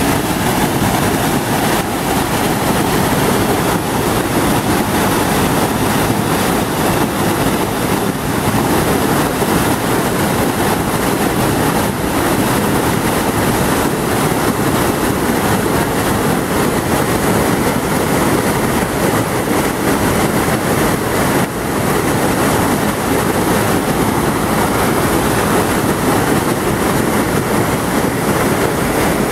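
Waterfall pouring over rock into a pool: a steady, loud rush of water.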